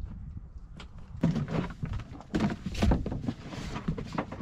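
Plastic water jugs being shifted about in a pickup truck bed: a series of hollow knocks and thunks with rustling, starting about a second in.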